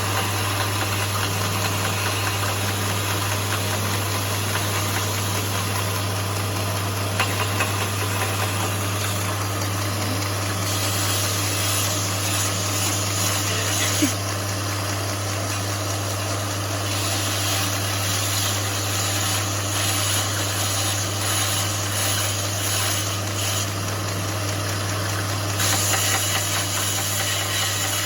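Homemade 2x72 belt grinder running, with a steady motor hum under a broad hiss. The hiss brightens for several stretches of a few seconds each.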